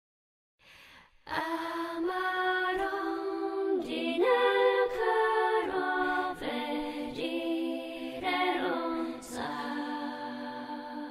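Music with singing voices, starting suddenly about a second in and holding long notes that step from one pitch to the next.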